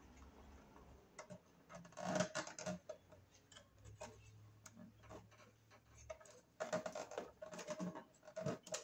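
Small irregular clicks and scrapes of a screwdriver and copper wire against a fuse box terminal screw as the wire is worked under it, with a cluster about two seconds in and a denser run near the end.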